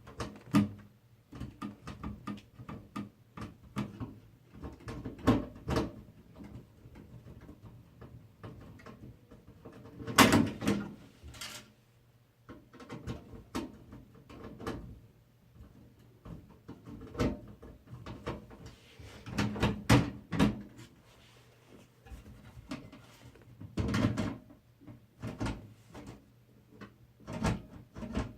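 Irregular clicks, taps and knocks of computer parts and a PC case being handled during a motherboard install, with louder clusters of clatter about a third of the way in, around two-thirds through and again shortly after.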